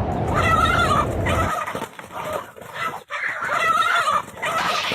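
Domestic fowl calling repeatedly in short pitched bursts. A low rumbling noise underneath stops abruptly about a second and a half in.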